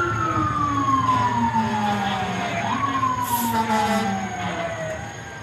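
Fire engine siren wailing: a long slow fall in pitch, a sharp rise about two and a half seconds in, then a second slow fall that dies away near the end, with a short hiss partway through.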